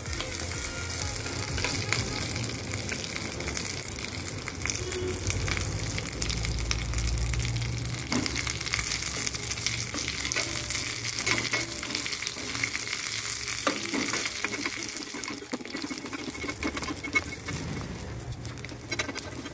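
Curry leaves, dried red chillies and green chilli sizzling and crackling in hot coconut oil in a small steel pan, a South Indian tempering; the sizzle jumps up as the curry leaves drop in and then holds steady.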